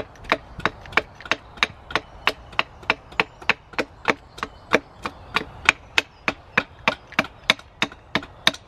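Wood being chopped with quick, even blows, about three a second.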